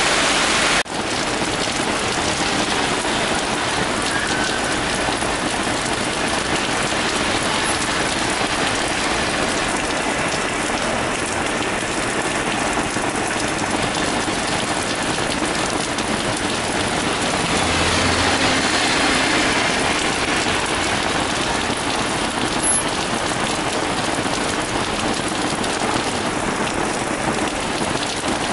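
Heavy rain pouring onto a flooded asphalt street: a dense, steady hiss of drops splashing on water and pavement. It swells briefly about two-thirds of the way through as a car drives through the standing water.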